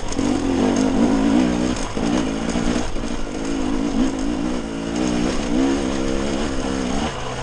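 Dirt bike engine under way, its revs rising and falling as the throttle is opened and eased off, with brief dips about two and three seconds in.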